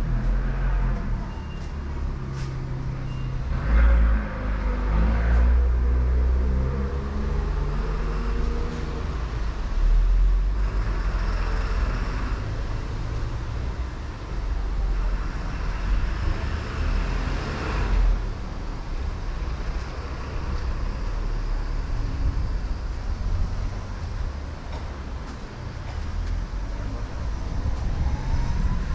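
Street and station ambience: passing road vehicles over a steady, swelling low rumble.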